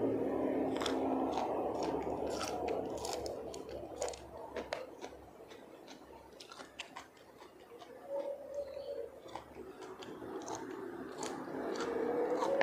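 Close-miked eating sounds: chewing on a raw green onion stalk, with many sharp clicks of snail shells and a toothpick. Near the end comes a rising, whistling suck as a cooked golden apple snail is pulled from its shell.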